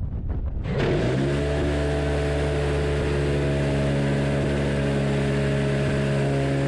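Phalanx CIWS six-barrel M61A1 20 mm Gatling cannon spinning up and opening fire about a second in, then firing one steady, unbroken burst at its very high rate of fire, up to 4,500 rounds a minute.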